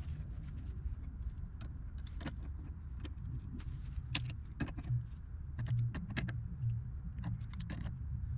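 Sharp metallic clicks and clinks of brass gas fittings (ball valve and union) being turned and seated by hand at the water heater's gas inlet, irregular and scattered, over a steady low rumble.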